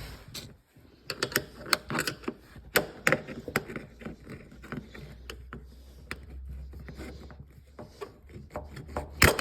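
Flat screwdriver prying metal retaining clips out of a plastic trim piece: irregular clicks and scraping, with a sharp snap near the end.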